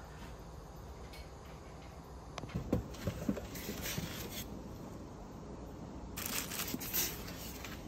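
Unboxing handling noise: plastic wrap rustling and a polystyrene foam packing insert rubbing against a cardboard box, with a few light knocks. There are two bursts of rustle, one about halfway through and one near the end.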